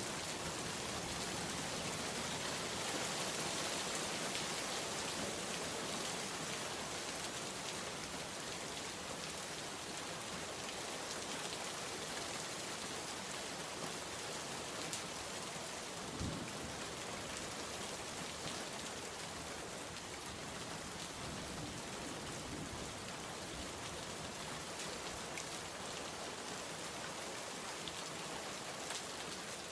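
Steady rain falling on a surface, an even wash of drops with a few louder individual drips, one about halfway through.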